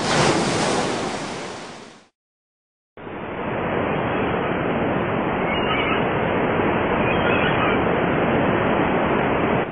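Steady rush of outdoor wind and small waves, in two stretches: a short one that swells and fades out about two seconds in, then after a second's silence a longer, even one.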